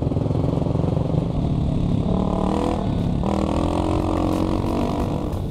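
Kawasaki KLX300 single-cylinder four-stroke dirt bike engine running under way, its pitch rising as it accelerates about two seconds in. The engine note changes abruptly about three seconds in.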